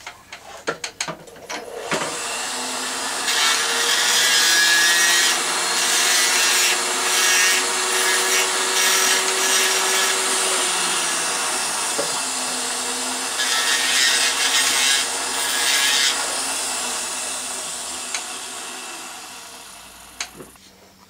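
Jeweller's rotary tool with a small abrasive wheel running at speed and grinding down the soldered loop of a metal cross to smooth the joint. The motor whines steadily, with a harsh rasp in two long stretches while the wheel bites the metal. A few small clicks come first, and the sound fades away near the end.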